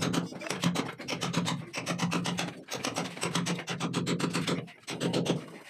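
Hammer driving a steel chisel into a brick wall, chipping brick and mortar with fast, even blows, several a second.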